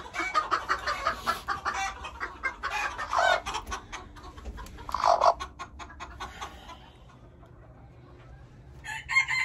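Chickens clucking rapidly, with a couple of longer calls in the middle. The clucking dies down for about two seconds, then a loud drawn-out call that rises and falls starts near the end.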